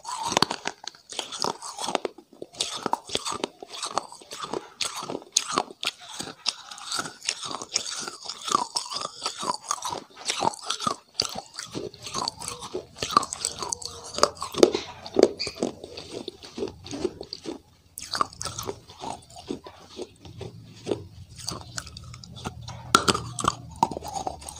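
Close-miked crunching and chewing: a person biting and chewing something hard and crumbly, with many sharp crackly bites.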